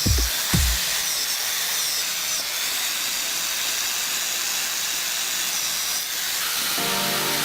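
A steady hiss; music with sustained chords comes in near the end.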